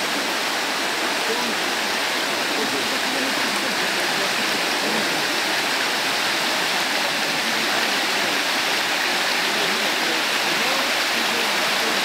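Fast-flowing river rushing over shallow rapids: a steady, full rush of water that does not let up.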